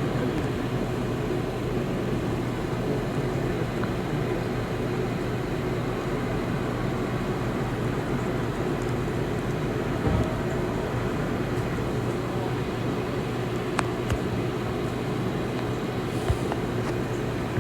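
Steady vehicle-like hum: a constant low-pitched drone with a few light clicks.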